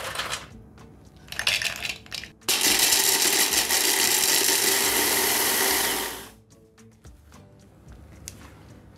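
Blender grinding dried black-bread rusks into breadcrumbs: the motor starts about two and a half seconds in, runs steadily for almost four seconds, then stops. A short clatter comes just before it starts.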